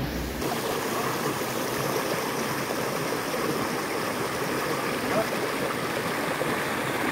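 Stream water running steadily, a constant noise of flowing water.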